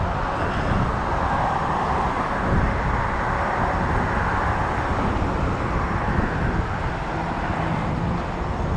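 Steady rushing noise of car traffic on the road alongside, mixed with a heavy low rumble of wind buffeting the moving microphone. It is a little louder in the first few seconds.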